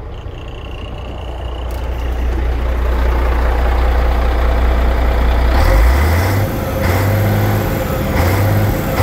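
MAN 27.403 6x6 truck's diesel engine idling with a steady low drone, growing louder over the first few seconds and shifting a little higher in pitch now and then after about six seconds.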